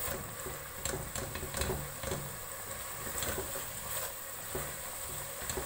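Wooden spatula stirring and scraping masala in an aluminium pot, with irregular light clicks of the spatula against the pot over the masala frying with a faint sizzle.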